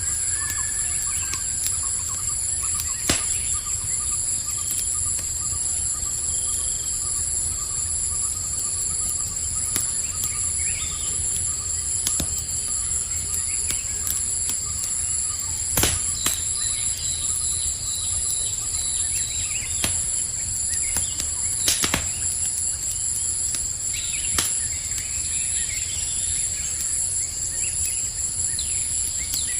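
Campfire crackling with a handful of sharp pops, the loudest about halfway through, over the steady high chirring of crickets and scattered bird calls.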